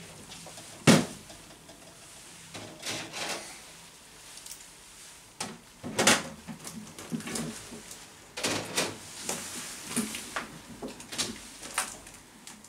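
Glass terrarium lids and doors being handled: knocks, clatters and scrapes, a sharp knock about a second in, then a run of irregular clatters and slides.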